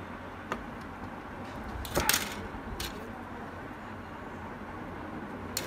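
Soldering work on a bench: a few small clicks and a short scraping rattle, loudest about two seconds in, as wire, solder and a soldering iron are handled against capacitor leads, over a steady low background noise.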